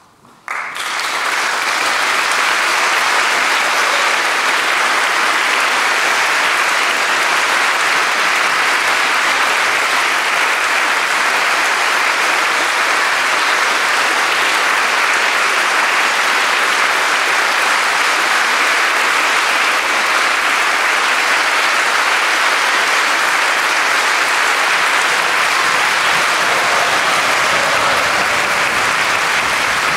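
Concert audience applauding. The clapping breaks out suddenly about half a second in and builds to a steady, dense applause within a second or two.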